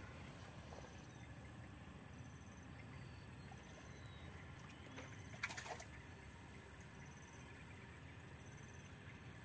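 Quiet outdoor ambience: a low steady hiss with faint, short, high chirps repeating about every two seconds. A brief scratchy rustle about five and a half seconds in.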